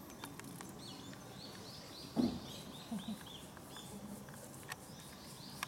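A small bird chirping in a quick repeated series, about three short calls a second. One brief, louder low sound comes about two seconds in, with a few fainter low sounds after.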